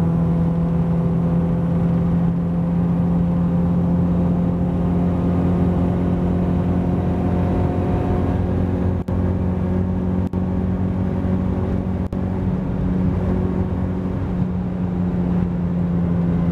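Honda B16A four-cylinder engine, fitted with Skunk2 Stage 1 camshafts, running at a steady pace while the Civic is driven, heard from inside the cabin. The sound dips briefly three times in the later half.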